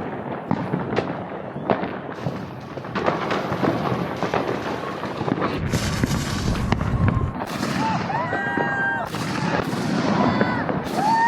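Consumer fireworks going off: a dense run of sharp pops and crackling bangs, with a deep rumbling boom about six seconds in.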